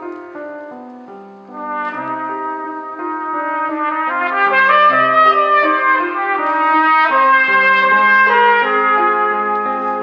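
Cornet playing a melodic solo line over piano accompaniment, starting softly, then swelling from about two seconds in to a loud passage in the middle before easing off slightly.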